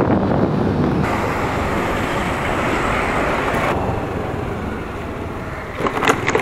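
Wind rush and road noise from a Honda Activa scooter being ridden. The hiss thins out about four seconds in as the scooter slows, and a few short sharp knocks come near the end.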